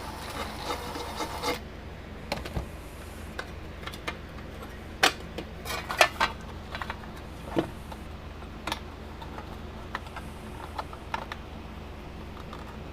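Small metal and plastic parts handled on a workbench: a short rubbing scrape, then scattered sharp clicks and light knocks as a gauge and screws are fitted into a fence charger's case.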